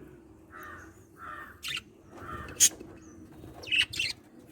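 Lovebirds giving several short, shrill squawks, the loudest a little past halfway, with softer, lower sounds between them.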